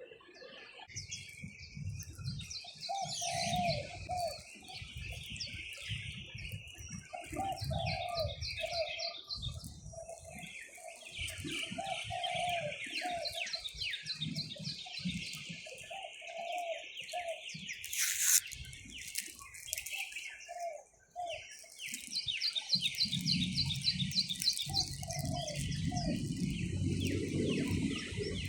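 Birds singing: rapid high trills and chirps, with a lower bird repeating short calls in phrases. There is a sharp click about eighteen seconds in and a low rumble near the end.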